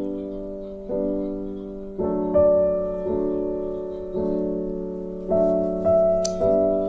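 Background music: a slow piano or electric-piano melody with notes struck about once a second.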